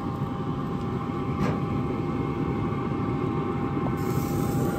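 Steady whirring hum over a low rumble, from a Pit Boss Titan pellet grill's fan running with the lid open. A faint click comes about a second and a half in.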